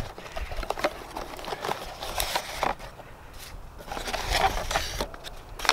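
Cardboard box and paper packing being handled and pulled open: irregular rustling with many short, sharp crackles.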